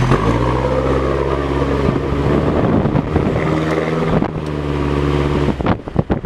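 A classic car's engine running as the car drives along: a steady drone whose pitch shifts a few times. Near the end the drone falls away to irregular buffeting of wind on the microphone.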